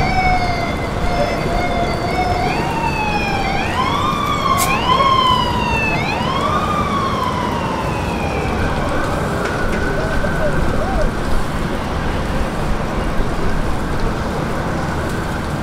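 An emergency vehicle siren wailing, its pitch sweeping up and down several times and then fading out about halfway through, over a steady rushing noise. A single sharp click sounds partway through.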